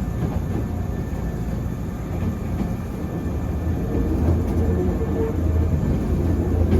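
Hankyu electric commuter train running, heard from inside the carriage: a steady low rumble, with a thin whine coming in about halfway through as it gets a little louder.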